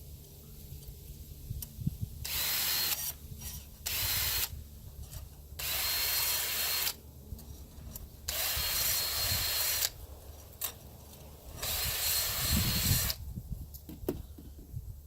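Handheld power tool with a grinding stone sharpening chainsaw teeth: five separate bursts of motor whine and grinding, about a second each, one tooth at a time.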